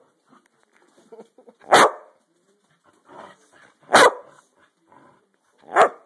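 A dog giving three sharp, loud play barks about two seconds apart, with faint scuffling between them.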